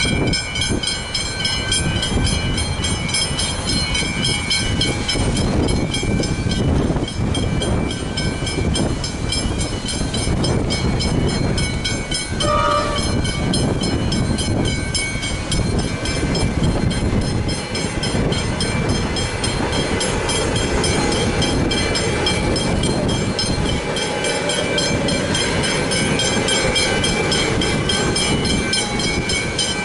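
Westinghouse Hybrid electronic level-crossing bells ringing continuously in a fast, even rhythm while the boom gates are down. Under them an electric suburban train rumbles across the crossing near the end.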